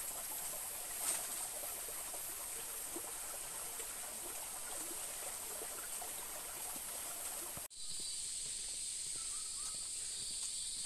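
Tropical rainforest ambience: a steady high-pitched insect chorus over a hiss of running water. About eight seconds in it cuts abruptly to a different, thinner high-pitched insect chorus.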